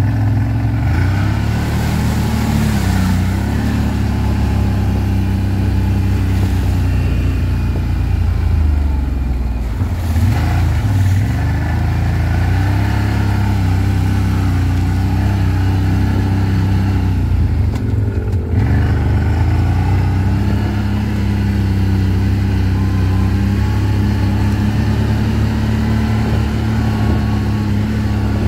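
ATV engine running under way, its pitch rising and falling with the throttle, with dips around ten and eighteen seconds in.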